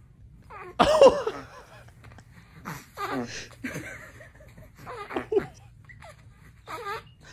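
A baby's high-pitched laughing squeals in four short bursts, the loudest about a second in.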